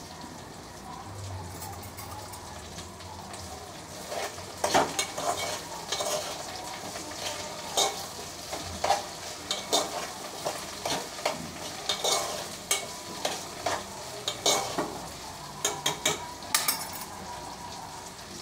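Sliced okra frying in oil in a pot on a gas stove, sizzling steadily, with a spoon stirring and scraping against the pot in irregular strokes from about four seconds in.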